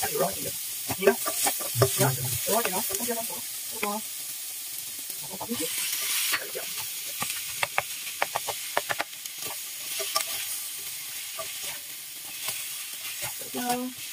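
Onion and turmeric chicken sizzling in a hot wok while a spatula stirs and turns them, with frequent short clicks and scrapes of the spatula against the pan.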